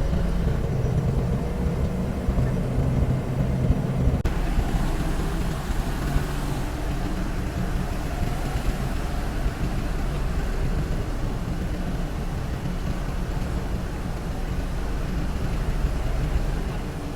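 Steady low rumble of a motor vehicle's engine and road noise, heard while riding along.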